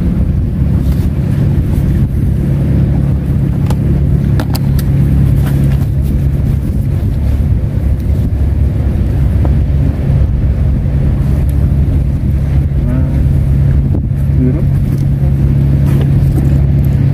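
A loud, steady low engine drone with a constant pitch, and a few faint clicks over it.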